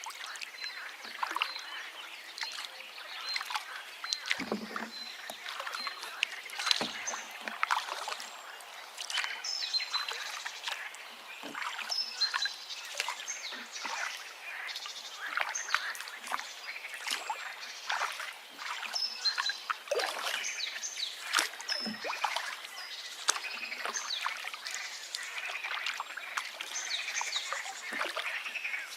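River water babbling and splashing in many quick gurgles, with birds chirping throughout in short repeated high notes.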